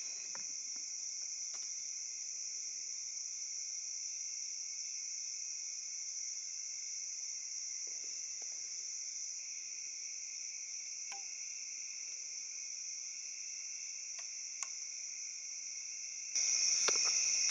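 Steady night chorus of crickets, a constant high-pitched buzz, with a few faint clicks. About 16 seconds in, louder rustling and handling noise comes in close to the microphone.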